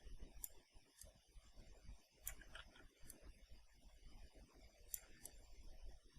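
Faint computer mouse clicks, about six at irregular intervals, over a low steady hum.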